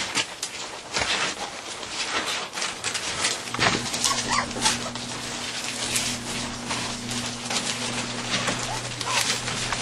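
Young German Shepherd puppies nursing, with a few short, high puppy whimpers over a run of soft clicks and rustling. A steady low hum comes in about three and a half seconds in.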